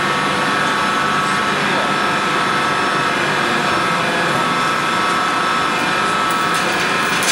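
Hydraulic power unit of a giant-tire cutting machine running steadily, a constant whine made of several steady tones, as the hydraulic cylinder moves the cutting blade.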